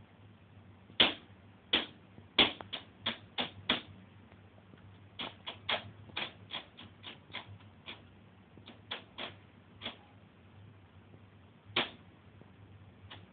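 Cat's paw batting a CD in a computer's open disc tray: sharp plastic clicks and taps in quick irregular flurries, then a couple of lone taps near the end, over a faint steady low hum.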